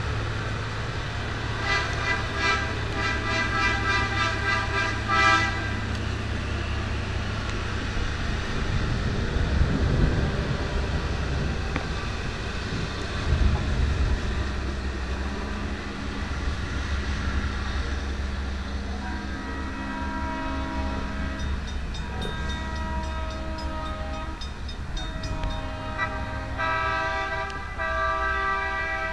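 Diesel locomotive air horn sounding a chord, one blast about 2 seconds in and then a series of blasts from about 19 seconds on, over the steady low rumble of the train.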